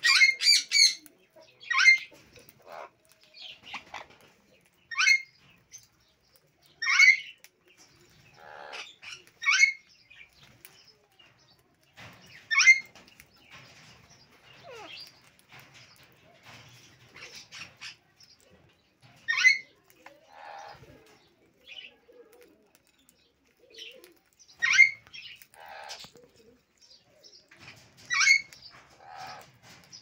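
Sun conures calling: about nine short, sharp, high-pitched screeches at uneven intervals, with softer, lower chatter between them.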